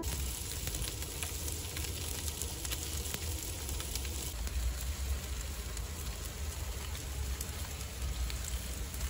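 Pork neck steaks and a whole fish sizzling on foil over a charcoal fire, with scattered crackles from the burning charcoal over a steady low rumble.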